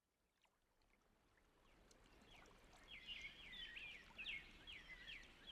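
Faint birdsong: quick high chirps and short trills, starting about three seconds in.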